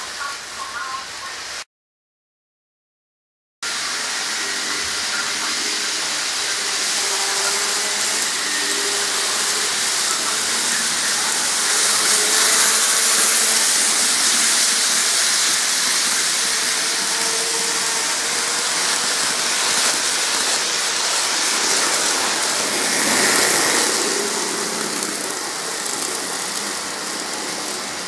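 N-gauge model trains running on plastic viaduct track: a steady hissing whir of wheels and small motors, loudest as a train passes close by about twelve seconds in. The sound cuts out to dead silence for about two seconds near the start.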